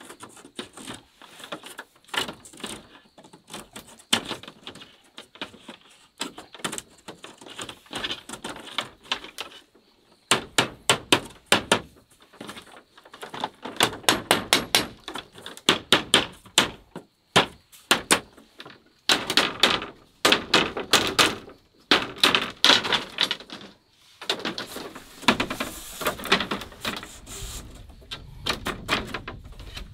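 Flat bamboo strips clacking and knocking against each other and the bamboo-slat floor as they are woven and pushed into place, in rapid runs of sharp clicks with short pauses between.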